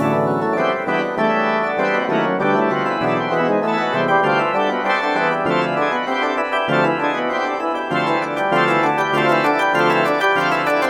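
Instrumental music: held keyboard chords that change every second or so, with no voice.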